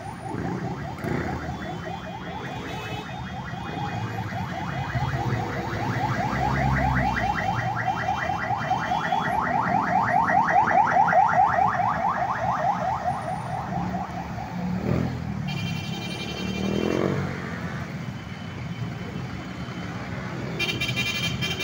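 Electronic siren warbling rapidly, about ten pulses a second, swelling to its loudest near the middle and cutting off about two-thirds of the way through. Underneath it, motorcycle and vehicle engines run as traffic passes close by.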